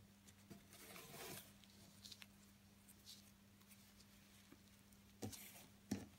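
Faint rustling of ribbon and a needle being drawn through burlap in an embroidery hoop, with a few small ticks and two soft clicks near the end, over a low steady hum.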